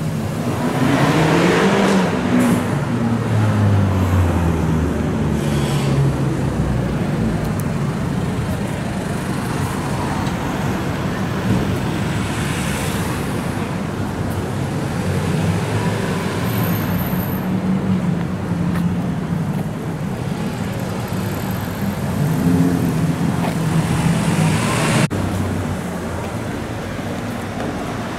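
Street traffic noise: a vehicle's engine note falls in pitch over the first few seconds as it passes, then a steadier engine hum under the general road noise.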